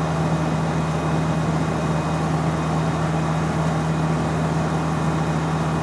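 Land Rover's engine and road noise heard from inside the cab while cruising at motorway speed: a steady drone with a constant low hum.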